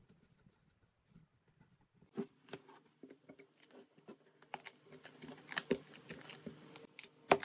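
Bark being pried and peeled off a log with a chisel: irregular crackling, clicking and tearing as the strips come away, starting about two seconds in and growing busier, with one sharp snap near the end.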